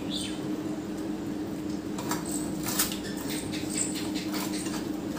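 A knife scraping scales off a fish in short repeated strokes, starting about two seconds in, over a steady low hum. Two brief high, falling squeaks sound right at the start.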